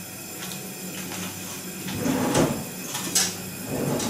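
Light kitchen handling noises at a gas hob: a rustle about two seconds in, a sharp click a little after three seconds, and soft knocks near the end, over a faint steady hum.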